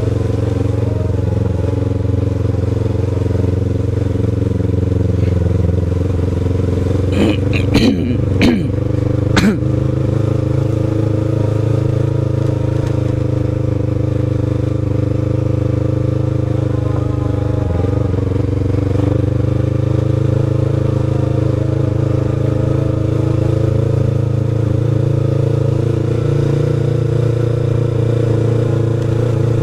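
Sport motorcycle engine running at a steady low cruising speed. About eight to nine seconds in there is a short cluster of sharp knocks and rattles.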